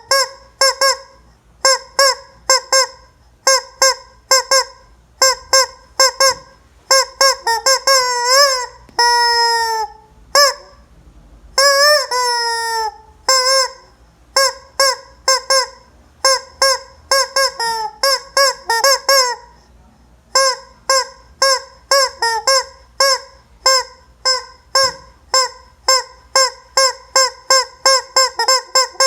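Rubber squeaky toy chicken squeezed over and over, giving a rapid run of short honking squawks. It sends out two longer drawn-out squeals that sag in pitch, about nine and twelve seconds in.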